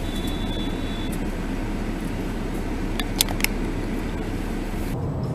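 Car engine and road noise heard from inside a moving car, recorded by a dashcam, with a few sharp clicks about three seconds in.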